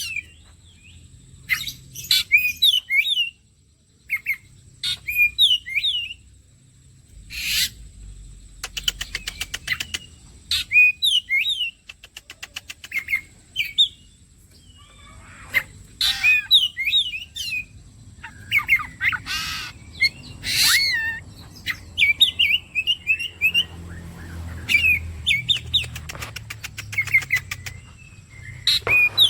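Oriental magpie-robin (kacer) singing: short, varied whistled phrases every second or two, broken by fast rattling trills.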